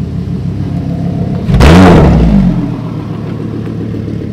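Lamborghini Gallardo's V10 engine running at low revs as the car pulls away, with one loud rev about a second and a half in that rises and falls in pitch over about a second before settling back.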